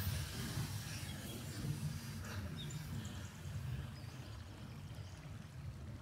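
Quiet woodland ambience: a steady low rumble with a few faint bird chirps.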